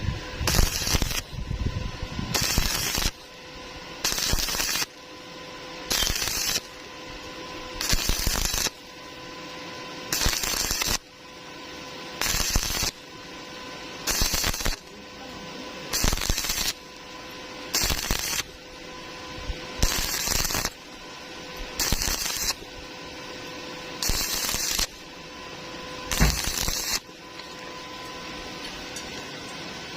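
Stick welding arc crackling in short bursts of under a second, about every two seconds, some fourteen times: a run of stitch or tack welds. A steady electrical hum runs underneath, and the bursts stop near the end.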